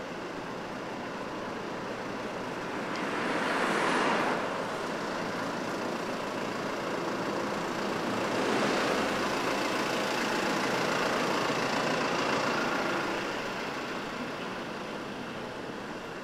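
Road traffic passing on a city street. One vehicle goes by about four seconds in, and a longer, louder pass follows from about eight to thirteen seconds.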